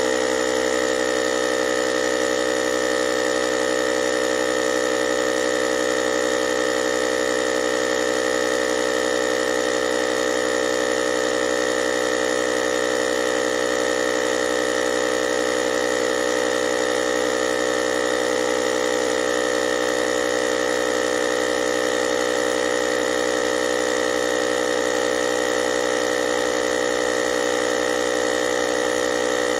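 Small portable air compressor motor running steadily, a constant buzzing hum with a higher whine that neither rises nor falls.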